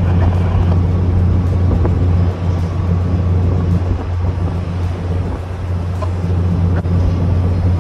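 Steady low machinery hum of a ship-to-shore container gantry crane and the ship at work as the crane lowers a twin pair of containers into a container ship's hold.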